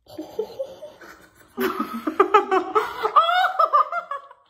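Girls laughing: soft giggles at first, then loud, choppy laughter from about a second and a half in, fading just before the end.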